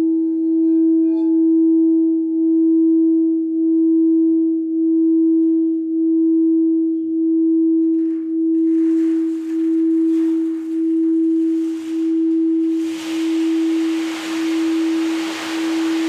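Singing bowl sustaining a steady low hum with a slow pulsing wobble about once a second. From about eight seconds a hiss joins it, growing louder from about thirteen seconds.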